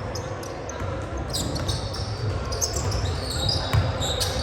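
Basketball being bounced on a hard gym floor during play, in a reverberant hall. Many short high squeaks start about a second in.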